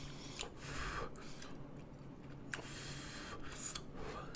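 Faint eating sounds: soft breathy puffs of blowing on hot ramen noodles held on chopsticks, and chewing, with a few light clicks.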